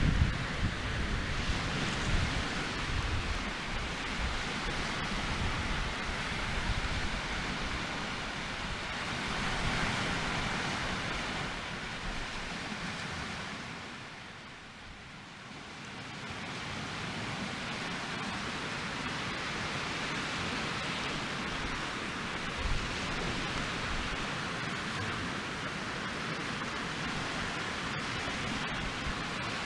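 Steady outdoor wind noise with low gusts buffeting the microphone. It eases for a moment about halfway through, then picks up again.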